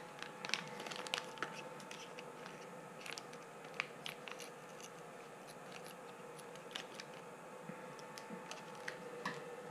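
Small plastic parts bag crinkling in the hand, with scattered light clicks and taps of small parts and tools on the workbench, over a faint steady hum.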